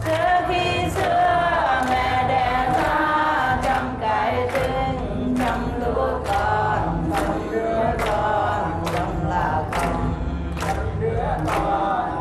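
A group of voices singing a Vietnamese song together, with a crowd clapping in unison on the beat, a little under one clap a second.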